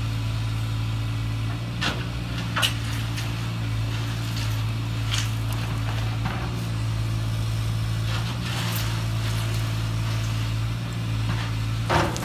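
Steady engine-idle drone at an unchanging pitch, with a few short gritty scrapes and clicks as a toy excavator bucket digs into sand.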